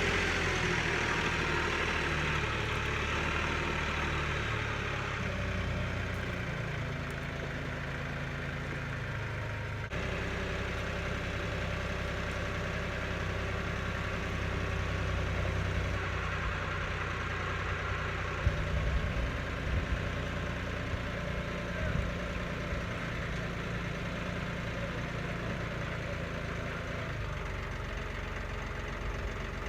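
An engine idling steadily, with a few short metallic knocks about two-thirds of the way through.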